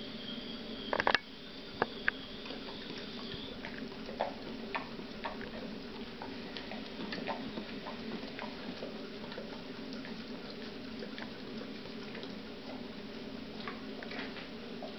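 A dog licking another dog's head: irregular wet tongue clicks and smacks, with a couple of sharper, louder clicks about a second in. A steady low hum runs underneath.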